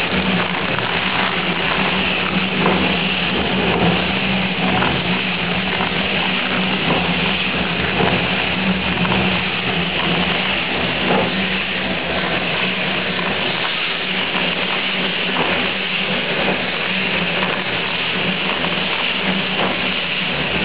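Pet food production machinery running steadily with a constant hum, and a dense, crackling patter of dry kibble pellets pouring into a cardboard box.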